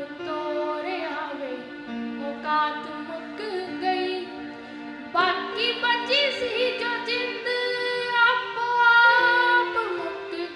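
Female voice singing a Punjabi song, holding long wavering notes over a steady sustained accompaniment.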